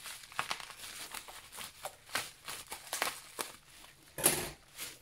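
Bubble wrap and plastic bag packaging crinkling and rustling as it is pulled off small fragrance oil bottles, in irregular rustles with one louder rustle about four seconds in.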